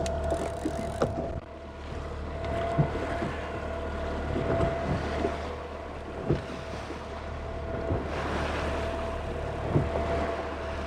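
Boat outboard motor running steadily at trolling speed, a constant hum with a steady tone over it, with wind and water noise and a few light knocks.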